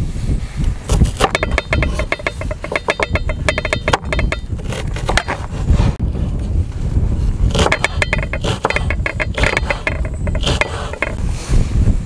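Kitchen knife chopping an onion on a wooden cutting board: runs of rapid, rhythmic knocks of the blade against the board, several a second, with brief pauses between runs.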